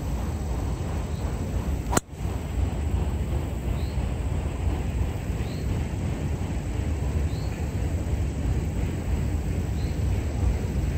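Golf driver striking a ball off the tee: one sharp crack about two seconds in. Under it a steady low rumble, and a faint short high chirp that repeats every couple of seconds.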